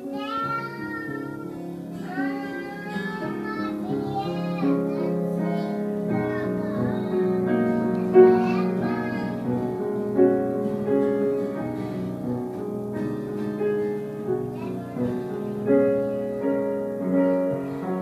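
Steinway grand piano being played, with a child's voice singing along over it, mostly in the first several seconds.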